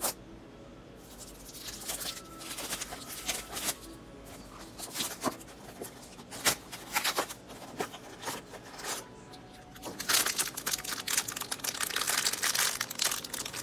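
Small cardboard blind box being torn open by hand, then its foil bag crinkling and ripping, with sharp scattered rips at first and dense, loudest crinkling in the last few seconds.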